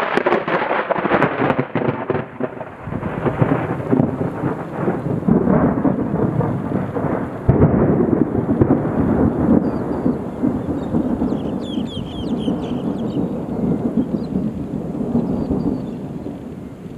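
Thunder: a crackling, rolling peal that rumbles on, with a second loud peal about seven and a half seconds in, then a slow fade.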